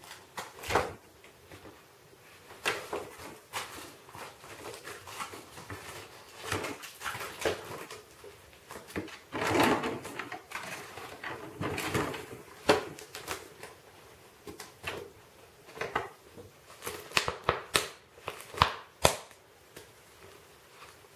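A Siberian husky puppy and a ferret scuffling at play: irregular knocks, taps and scrabbling, busiest about halfway through and again as a quick run of sharp knocks near the end.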